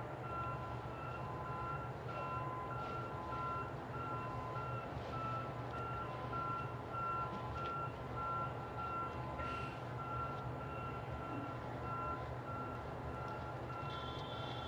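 Electronic beeping repeating at an even pace, short tones at two alternating pitches, over a steady low hum.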